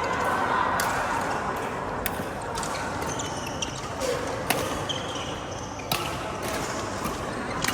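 Badminton rally: sharp racket hits on the shuttlecock every couple of seconds, with short high squeaks of shoes on the court floor.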